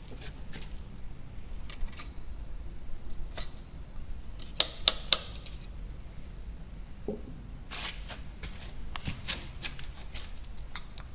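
Scattered small clicks and taps of a muzzle-loading pistol and its loading tools being handled, with three sharp clicks in quick succession about halfway through.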